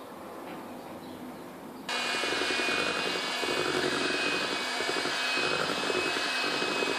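Electric hand mixer running steadily, its beaters working sifted flour into an egg, sugar and corn-oil batter for shortcrust dough. It starts abruptly about two seconds in, after a faint stretch of flour being shaken through a metal sieve.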